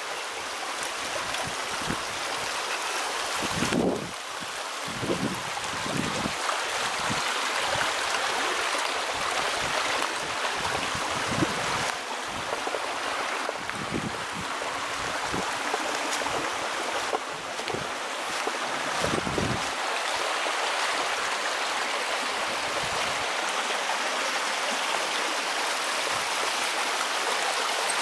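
Small mountain stream babbling over rocks, a steady rushing of water, with a few dull low thumps here and there.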